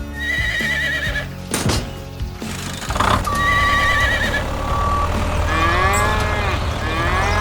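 Edited-in comic sound effects: two short warbling whistle tones, a steady beep, then several rising-and-falling pitch glides, over a steady low hum.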